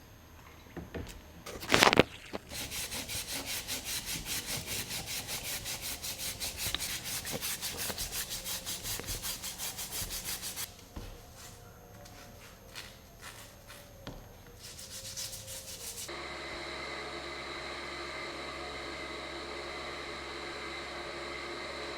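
A sharp knock, then rhythmic back-and-forth rubbing strokes of hand abrasion, about four a second, for some eight seconds. After a few scattered clicks and a short second bout of strokes, a small electric motor starts about sixteen seconds in and runs steadily to the end.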